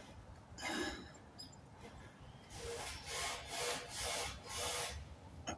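A hand works the new fuel pump module and its rubber seal into the fuel tank opening, with a short breathy rustle about a second in. In the second half come about five quick, evenly spaced rubbing scrapes.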